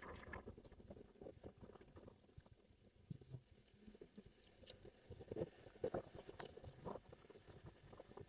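Near silence, with faint scattered rustles and soft ticks, a few slightly stronger ones around five to seven seconds in.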